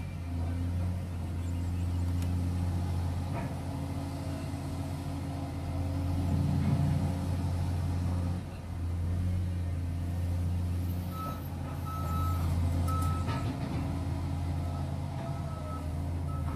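Caterpillar 345GC excavator's diesel engine running steadily as it digs and swings, its low drone dipping briefly about eight seconds in. From about eleven seconds in, a reversing alarm beeps in short, uneven pulses over the engine.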